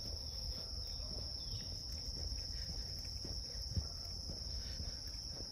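A steady high-pitched insect drone, trilling without a break, with a low rumble underneath and a single small knock a little past the middle.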